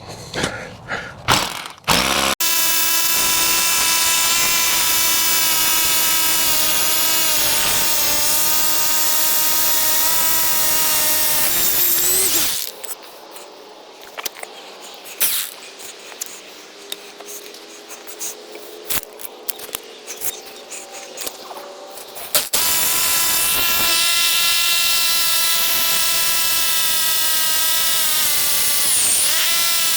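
Power drill boring 1/2-inch anchor bolt holes into a concrete slab, running with a steady whine. It stops about twelve seconds in for a quieter stretch of scattered knocks, then starts again at about twenty-two seconds.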